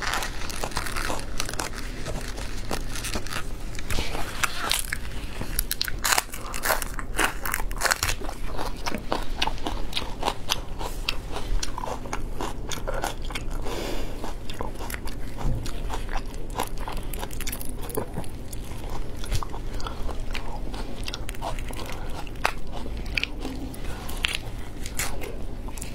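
Close crackling and crunching of large prawns' shells being cracked and peeled apart by gloved hands, mixed with wet chewing: many sharp clicks with no steady rhythm.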